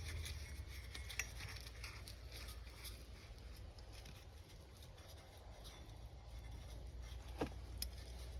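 A few faint, sharp clicks and knocks from metal parts and tools being handled, over a low steady hum.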